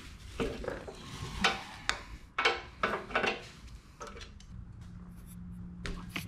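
Short metal clicks and clinks of a 6 mm hex-bit hand tool being fitted and worked on the front fender's mounting bolts. A faint steady low hum comes in past the middle.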